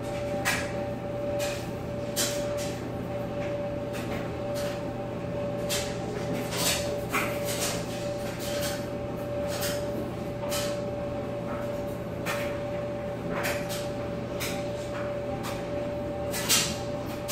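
A hand stroking a German Shepherd's fur, giving irregular short brushing rustles, over a steady machine hum with a constant tone.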